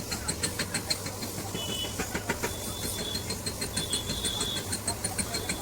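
Rapid light metallic tapping, about five or six sharp taps a second, each with a brief ring, over a steady low rumble of traffic.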